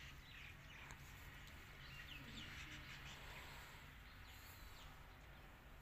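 Faint background birds chirping: several short, scattered calls over a low steady hum.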